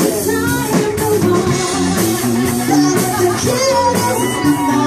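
Live band playing a song: a voice singing over bass guitar and held chords, driven by a steady beat of about two strokes a second.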